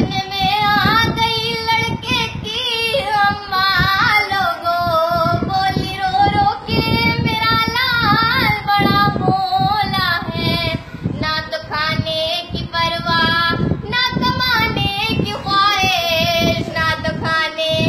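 A girl singing solo, holding long, wavering notes in a continuous melody.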